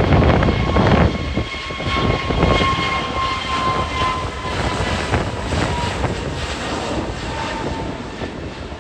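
Airbus A320neo (A320-251N, CFM LEAP-1A turbofans) jet noise: a loud rumble with a steady engine whine whose main tone slowly falls in pitch, fading gradually as the aircraft moves away.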